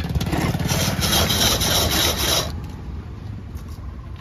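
Ice being crushed for a drink: a rapid, steady rasping scrape that runs for about two and a half seconds and then stops.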